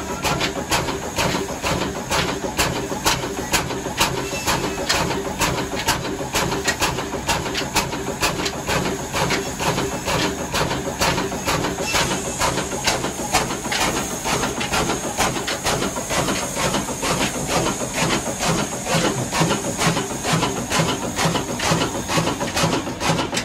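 Old slow-speed horizontal diesel 'black oil' engine with a large flywheel, running with an even beat of about two to three knocks a second and a hissing exhaust.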